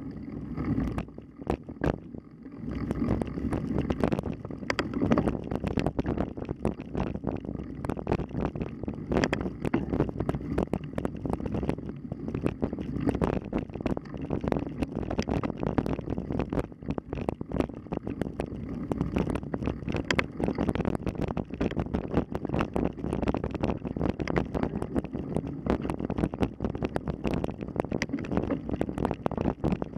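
Wind buffeting the microphone over a constant clatter of small knocks and rattles, the sound of a camera riding along on a mountain bike over rough trail.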